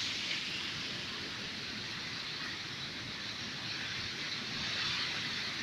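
Heavy rain falling in a strong storm, a steady hiss with no breaks.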